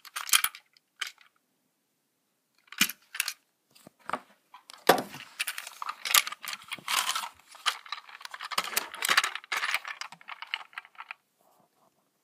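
A plastic Plarail toy train car being handled close to the microphone: irregular clicks, knocks and rattling scrapes, with a short pause after the first second.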